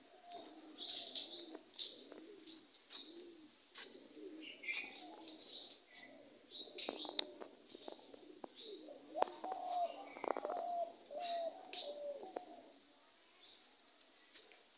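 Doves cooing over and over, with small birds chirping in short high notes. The cooing fades about three-quarters of the way through, and a few sharp clicks fall around the middle.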